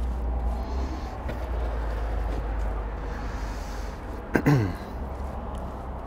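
Wet Satanite refractory mortar being smeared by hand over a soft fire brick, over a steady low rumble. About four seconds in, a short loud sound falls sharply in pitch.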